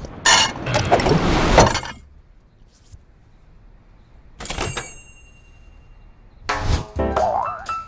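Stacked ceramic plates clattering and scraping for about two seconds, then a single plate clink with a ringing tone about four and a half seconds in. Near the end, swing music with horns comes in.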